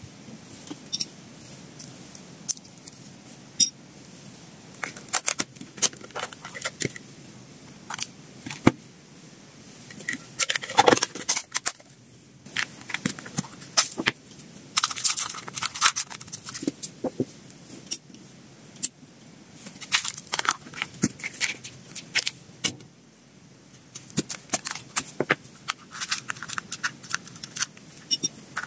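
Close-up food-handling sounds: crinkling packaging, a clear plastic food box handled and opened, and small treats and a plastic scoop set down on small ceramic dishes with light clicks and clinks. They come in irregular clusters with short pauses.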